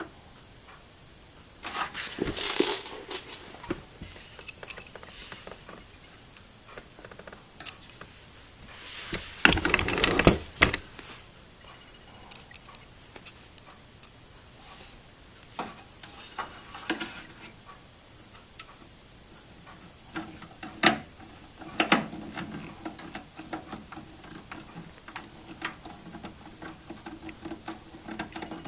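Hands working inside a desktop computer case: irregular metallic clicks, clatter and scraping of the drive bracket, screws and cables being handled, with a few louder bursts of handling noise.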